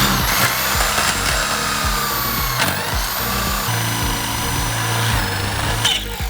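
A high-speed power tool running under load, its whine dipping and recovering in pitch, over background music. It cuts off near the end.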